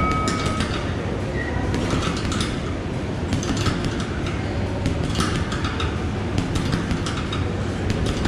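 Fortress boxing gloves punching a hanging heavy bag in quick combinations, about twenty punches in eight seconds, heard as short sharp strikes in clusters. It opens with the tail of a long electronic timer beep marking the start of the round, which stops about half a second in.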